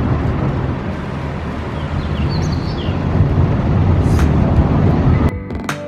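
Heavy rain pouring down, a steady rushing noise with a deep rumble underneath; it cuts to music near the end.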